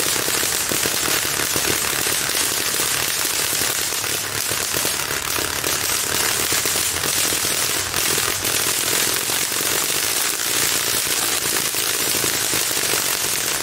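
A 3-million-volt Tesla coil throwing electric arcs: a loud, continuous rapid crackle of electrical discharge.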